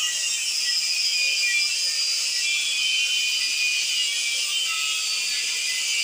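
Angle grinder's disc cutting through the steel shell of a refrigerator compressor: a steady, high-pitched grinding hiss.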